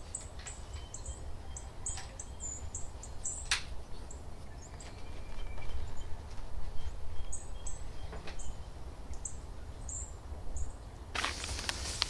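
Small birds chirping in short, high chirps, often several in quick succession, over a steady low rumble, with a sharp click about three and a half seconds in.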